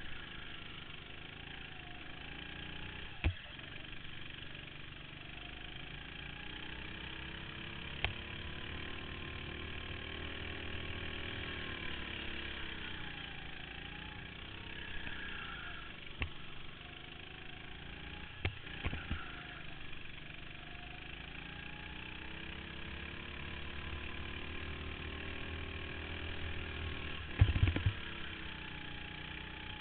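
Go-kart engine running under the driver, its pitch rising and falling over a few seconds at a time as it revs up and eases off. There are a few sharp knocks, the loudest a rattle of them near the end.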